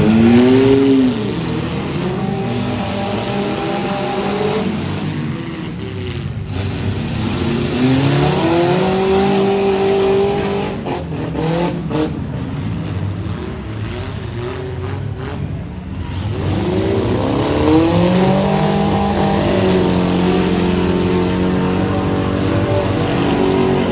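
Demolition derby cars, vans and trucks with their engines revving hard in repeated surges, pitch climbing and falling as they back up and charge. A few sharp knocks of metal impacts come around the middle.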